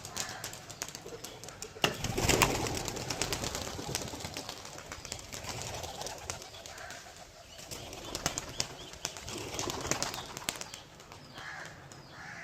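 Domestic pigeons cooing and shuffling, with scattered ticks of light rain and a louder rustle about two seconds in.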